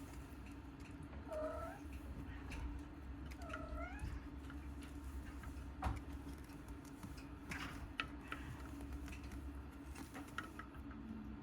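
A kitten mewing twice, short rising-and-falling calls, followed by scattered light clicks and taps over a steady low hum.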